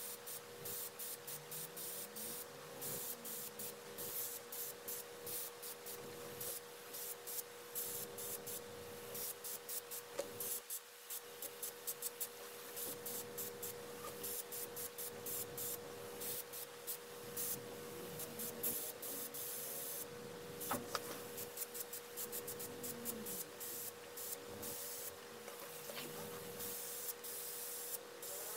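Gravity-feed airbrush hissing in many short, quick bursts as the trigger is pressed and released while spraying paint, over a steady hum.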